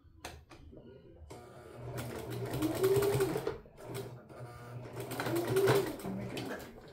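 Domestic sewing machine stitching a seam in two short runs, the motor speeding up and then slowing in each.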